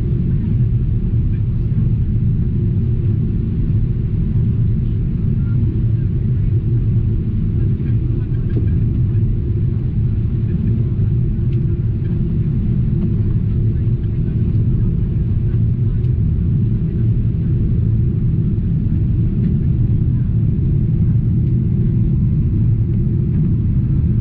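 Steady low rumble inside the cabin of a Boeing 777-200ER airliner in flight: engine and airflow noise heard at a window seat over the wing, on descent to land.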